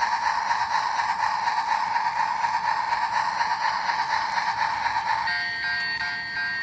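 Battery-operated toy train's electronic sound effects played from its small speaker: a steady high electronic tone that pulses several times a second like a chug. About five seconds in it changes to a different set of electronic tones with a quick repeated beep.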